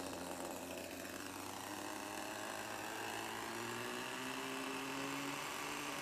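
Radio-controlled model helicopter's small engine and main rotor running, the pitch rising slowly as it spools up toward lift-off.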